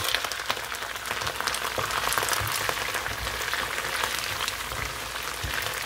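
Onions frying in plenty of hot oil sizzle steadily as tomato halves are added and pushed around the pan. A wooden spatula knocks softly against the pan now and then.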